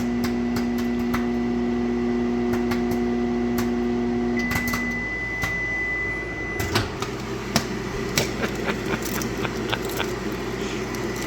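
A commercial 240-volt microwave oven is running with a steady hum while a bag of popcorn pops inside in quick, scattered pops. A few seconds in, the hum cuts off and a single long high beep sounds for about two seconds, marking the end of the cooking cycle. Occasional pops carry on after it stops.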